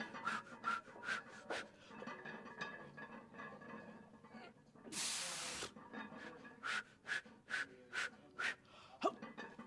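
Close-miked heavy breathing of a man straining through a set of barbell squats: a run of short, sharp breaths and one long forceful exhale about five seconds in.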